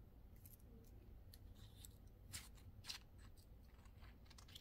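Faint metallic ticks and light scraping from a small titanium peanut lighter being handled and its screw cap twisted by hand, with a couple of sharper clicks a little past the middle.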